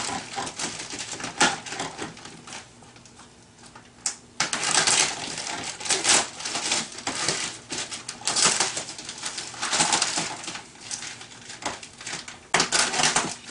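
Clear plastic stretch wrap on a cardboard box crinkling and tearing as a pocket knife cuts it and hands pull it apart, in irregular bursts, with a quieter pause a few seconds in.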